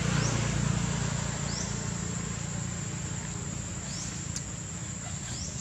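Outdoor ambience of a steady high-pitched insect drone, with a short rising chirp repeating every second or so and a low rumble underneath.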